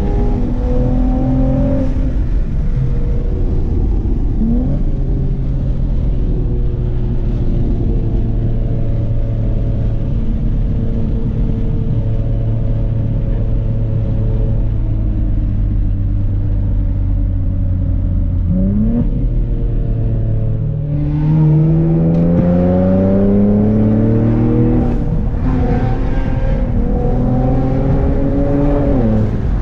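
Nissan Z's twin-turbo V6 with catless downpipes and a full 3-inch aftermarket exhaust, heard from inside the cabin. It cruises at steady revs with a quick rev blip, then pulls hard: revs climb, fall at a gear change, climb again, and fall at another shift near the end.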